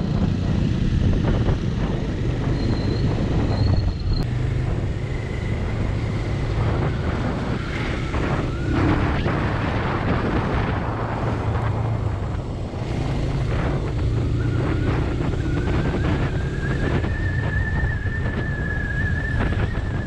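Motorcycle engine running under way as the bike picks up speed, with wind noise buffeting the microphone.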